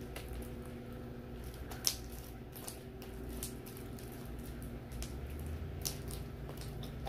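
Homemade glue-and-borax slime being stretched, squeezed and kneaded in the hands: sticky squishing with sharp little clicking pops scattered through, a few of them standing out. The slime had set too hard and is being worked soft.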